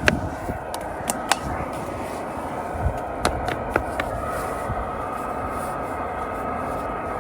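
Snow brush knocking and scraping snow off a furnace intake vent: a few sharp knocks in the first second and a couple more about three seconds in, over a steady rumbling noise.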